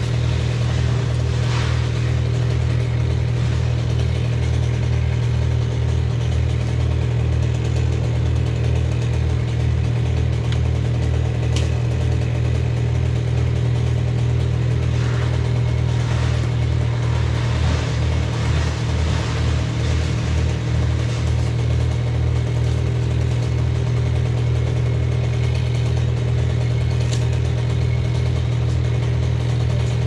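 An engine idling steadily nearby, a deep, even hum with a low regular pulse that does not change pitch.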